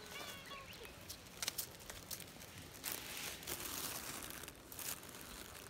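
A black cat gives one short, high meow at the start. Then come scattered rustling and brushing noises close by as it is petted.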